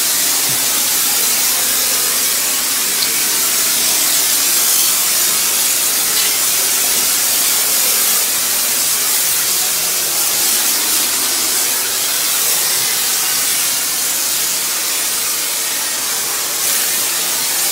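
High-pressure washer jet hissing steadily as it sprays water and mud off a muddy dirt bike.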